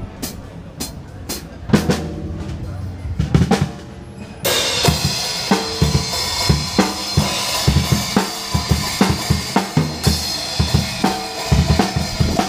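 Trick acoustic drum kit played live: separate tom and bass drum strokes at first, then about four and a half seconds in the cymbals crash in and a fast, busy groove of kick, snare and cymbals carries on under a constant cymbal wash.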